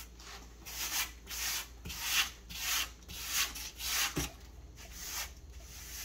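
Rubber grout float scraping grout across a tiled backsplash in quick repeated strokes, about nine of them, that stop near the end.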